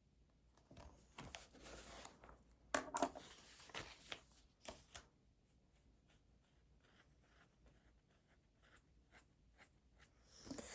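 Faint pen writing on paper, in short scratching strokes with a few sharper clicks over the first half, then only occasional light ticks.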